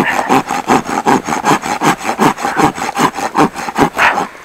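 The saw-back teeth of a Vovkulaka machete cutting a dry branch in quick, even back-and-forth strokes, about five a second, over a steady ringing note. The sawing stops just before the end.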